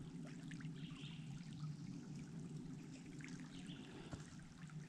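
Faint trickle of creek water flowing, with small irregular splashy flicks.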